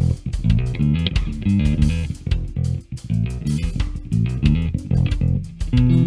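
Gretsch G2220 Junior Jet II short-scale electric bass with single-coil pickups, played fingerstyle: a quick, continuous run of plucked bass notes, with a brief drop-out a little before the middle.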